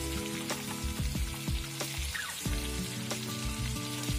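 Background music with a steady beat, over fish steaks sizzling as they shallow-fry in oil in a pan.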